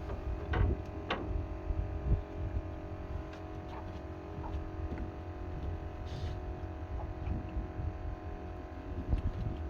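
A steady hum made of several fixed tones over a low rumble, with a few faint clicks and knocks.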